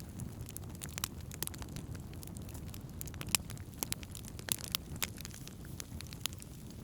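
Wood campfire burning: a steady low rumble of the flames with irregular sharp pops and crackles of burning wood, several a second at uneven intervals.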